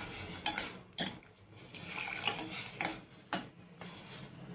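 Water being poured into a pan of cooking vegetables, in two pours, with a few clinks of the vessel against the pan.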